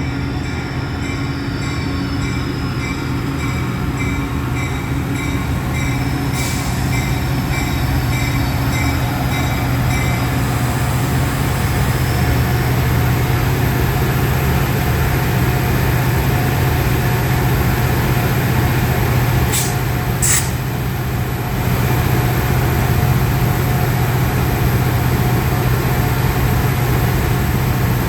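Caltrain commuter train running past with a steady low rumble that grows louder over the first dozen seconds. A bell dings about twice a second for the first ten seconds, and two sharp clanks come about two-thirds of the way through.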